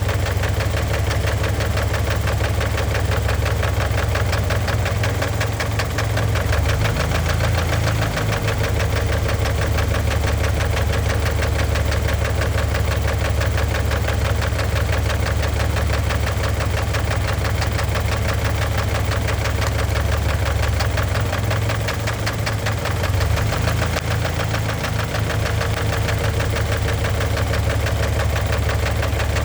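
Engine idling steadily with a rapid, continuous knock. The knock comes on once the engine is at temperature, and the owner takes it for a fault that thick oil had been masking, which the added Lucas heavy-duty oil stabilizer has not silenced.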